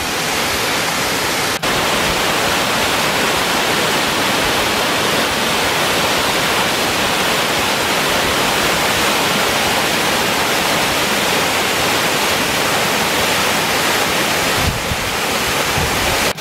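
Waterfall pouring over rock ledges into a plunge pool: a loud, steady rush of falling water, with a brief drop-out about one and a half seconds in.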